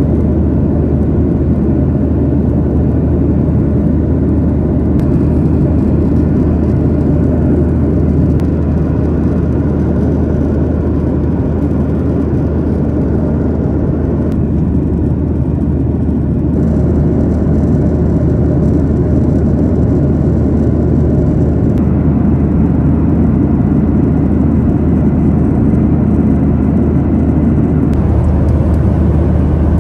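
Steady cabin drone inside a Boeing 737-800 in flight: a constant low hum from its CFM56 turbofan engines under an even rush of airflow.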